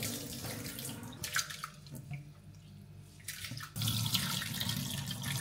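Tap water splashing into a saucepan and a stainless-steel sink as rice is rinsed. The water stops for about two and a half seconds, with a few light knocks, then splashes again, louder, near the end.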